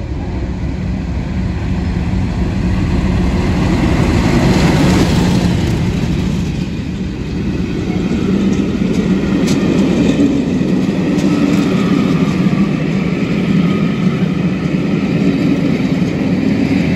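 Diesel-hauled passenger train passing at speed: the English Electric engine of a Class 50 locomotive goes by, loudest about four to five seconds in. The coaches follow with a steady rumble and a few sharp clicks of wheels over rail joints, and the sound builds again near the end as the Class 37 on the rear draws near.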